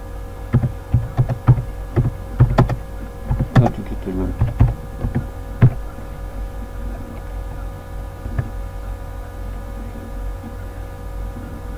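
Computer keyboard typing: an irregular run of key clicks for about the first six seconds, then it stops. A steady hum runs underneath throughout.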